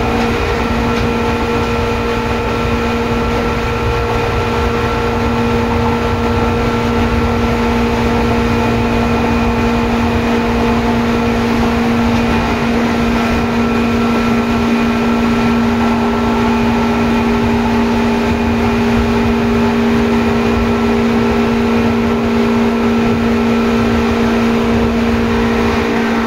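Seibu 2000 series electric train running at steady speed, heard from inside the car: a loud, steady motor whine over the rumble of the wheels on the rails.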